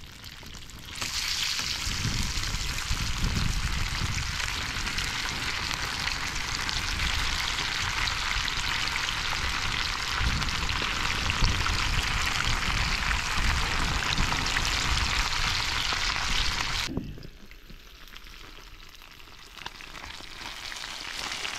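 Fish pieces sizzling as they fry in hot oil, a steady loud sizzle that starts about a second in and cuts off suddenly near the end, leaving only a faint hiss.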